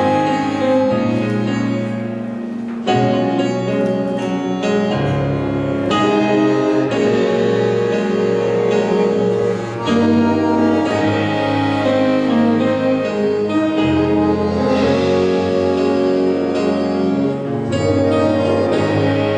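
Live school jazz big band playing a jazz chart: sustained chords from saxophones and brass over piano and rhythm section. The full band comes in louder about three seconds in.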